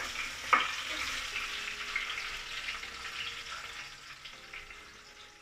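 Sliced onions sizzling in hot oil in a pan, with a single knock of the stirring spoon about half a second in. The sizzle slowly dies down.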